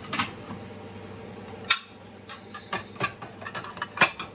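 Ceramic dinner plates clinking and knocking as one is lifted off a stack: a sharp clack about two seconds in, then a run of lighter clicks and a loud knock near the end.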